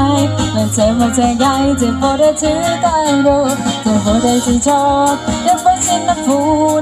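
Live band playing through PA speakers: a woman singing a melody over acoustic guitar and a steady percussion beat.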